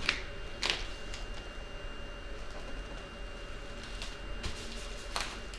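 Duct tape being pressed onto plastic bubble wrap: a few short, soft rustles, about half a second in and again near the end, over a faint steady hum.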